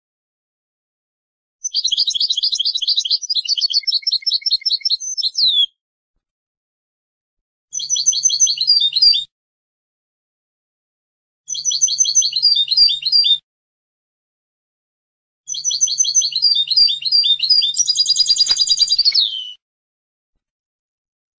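European goldfinch singing: four phrases of rapid, high twittering notes, each one and a half to four seconds long, separated by a few seconds of silence. The last and longest phrase carries a fast trill near its end.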